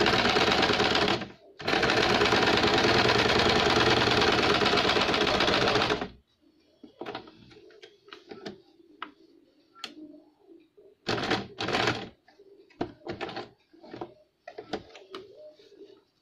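Small electric sewing machine stitching: a run of about a second and a half, a brief pause, then a steady run of about four and a half seconds. After that it sews in a string of short bursts of a few stitches each, with pauses between.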